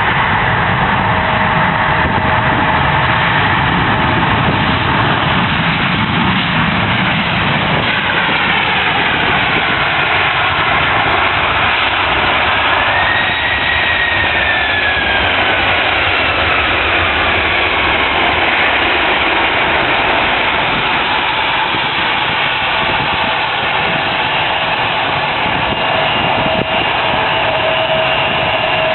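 Ryanair Boeing 737's jet engines passing on the landing approach: a loud, steady roar, with a whine that falls in pitch as the aircraft goes by, mainly through the middle of the stretch.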